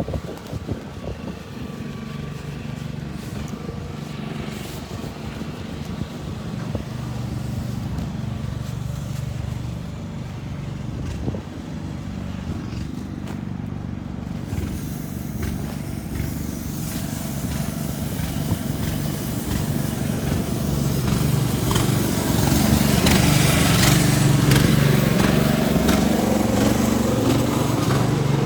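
Storm wind buffeting the microphone over a low steady rumble, growing louder and harsher from about halfway through.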